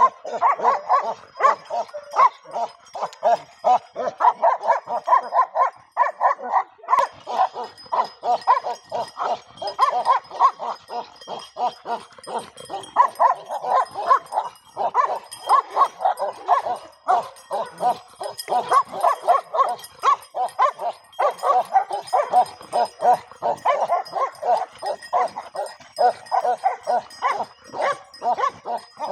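Young dogs barking and yapping over and over, several short barks a second almost without a break, play-barking as they tussle around a branch.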